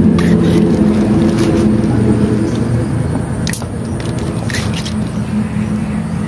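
A steady low motor hum, like an idling engine, with a few brief crinkles of plastic bags being handled under the eel as it is cut.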